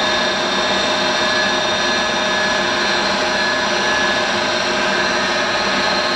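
DoALL FV-2V vertical milling machine running, its 3 hp variable-speed head turning the spindle in the high range with the power quill feeding: a steady whine of several held tones.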